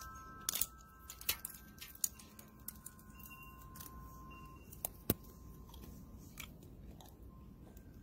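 Sheet of ice on a glass patio tabletop cracking and popping: sharp clicks and cracks at irregular intervals, the loudest about half a second in and just after five seconds, with faint thin steady tones under them.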